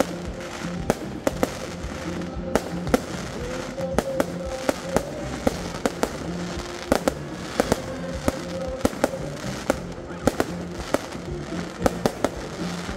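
Fireworks going off: a steady run of sharp bangs at uneven intervals, one or two a second, over music playing underneath.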